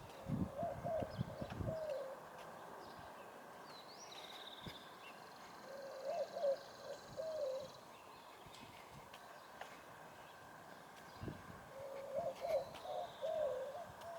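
A dove cooing: a short phrase of several notes, repeated three times about six seconds apart, with a small bird calling faintly higher up. Footsteps thud during the first two seconds.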